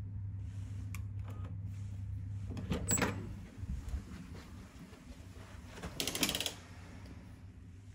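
Electronic keycard lock on a hotel room door: a brief high beep with a click as it unlocks about three seconds in, then a rattling clatter of the lever handle and latch as the door is worked about six seconds in. A low steady hum runs under the first half and drops away.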